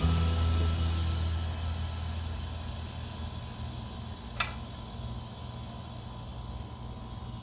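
Instant Pot Duo Nova's steam release valve venting the remaining pressure after a high-pressure cook: a steady hiss that gradually weakens as the pressure runs down. A single short click about four and a half seconds in.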